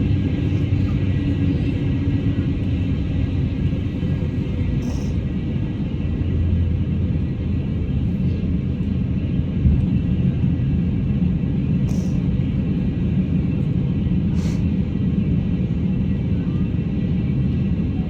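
Steady low rumble of an airliner heard from inside the passenger cabin, with a few faint high ticks.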